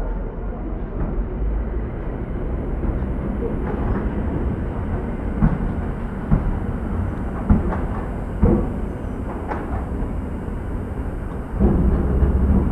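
Train running on rails: a steady low rumble with a knock about once a second, like wheels going over rail joints. It gets louder near the end.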